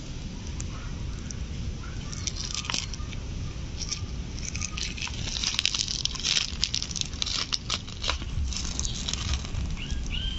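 Fingers tearing the wet, stringy pulp of ripe palmyra palm fruit off its seeds: a patter of small wet crackles, tears and squelches, sparse at first and thickest through the middle and latter part.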